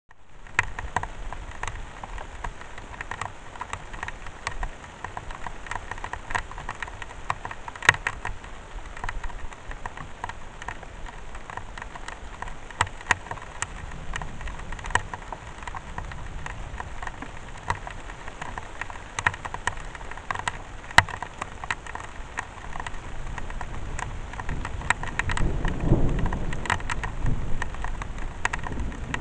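Steady rain, with many sharp drip ticks among the patter. Near the end a low rumble swells for a couple of seconds.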